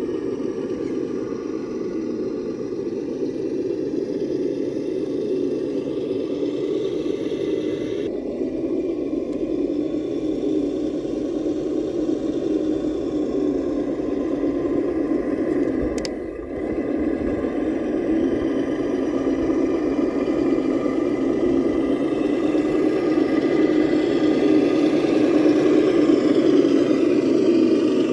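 Radio-controlled truck's electric motor and geartrain running steadily with a continuous whirring drone, dipping briefly about halfway through.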